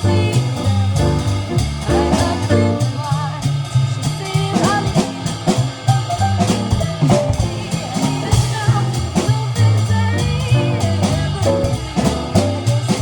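Small jazz group playing a swing tune: drum kit keeping time under a stepping bass line, with guitar and a wavering lead melody line on top.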